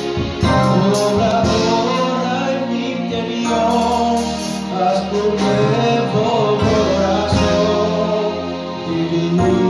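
Live worship-band music: an electric stage keyboard playing chords over a drum kit with repeated cymbal hits.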